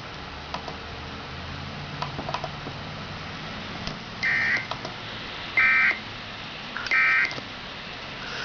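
About four seconds in come three short bursts of Emergency Alert System (SAME) end-of-message data tones, spaced about 1.4 s apart. This is the digital "NNNN" code that closes an EAS broadcast. Before them there is only a faint hum and a few clicks.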